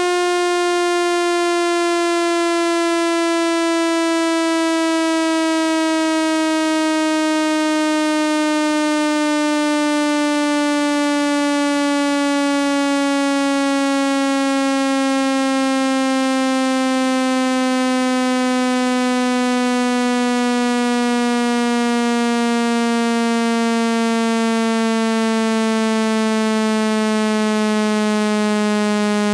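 Synthetic speaker-cleaning tone for pushing water out of a wet phone speaker: a loud, buzzy electronic tone with many overtones, gliding slowly and steadily down in pitch.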